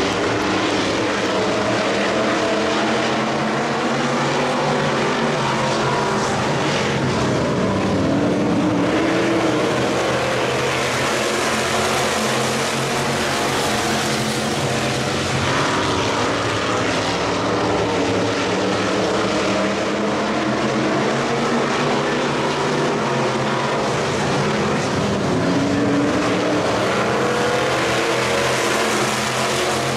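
Several Factory Stock dirt-track race cars' engines running together on the track, their pitch rising and falling as the cars accelerate and lift through the turns in a steady, overlapping din.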